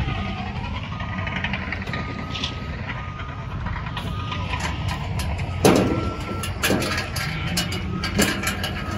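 Reversing alarm of a heavy vehicle beeping about once a second over a steady low engine rumble, with a few sharp knocks, the loudest a little over halfway through.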